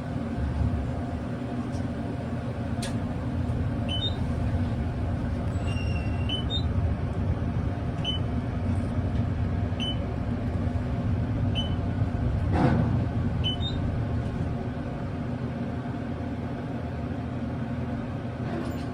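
Otis machine-room-less traction elevator car travelling: a steady low rumble with a constant hum from the drive, and short high chirps that come every second or two. One brief louder swell a little past the middle.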